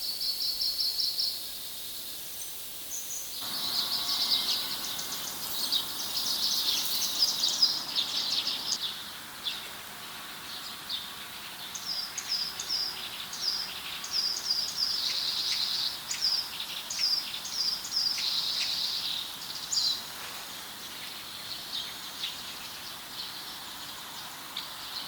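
Wild forest birds singing: high, quick trills and runs of short repeated chirps, over a steady outdoor hiss.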